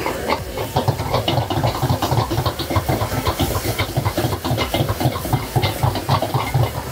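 Metal ladle rapidly scraping and knocking against a wok, several strokes a second, over a steady hiss of sizzling and high flame as ginger, garlic and green chilli paste is stir-fried and the fire flares up into the pan.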